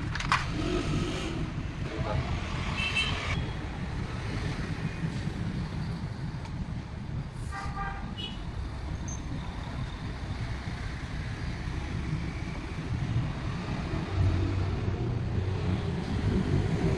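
Steady low rumble of road traffic, with a couple of short horn toots, about three seconds in and again about seven seconds in.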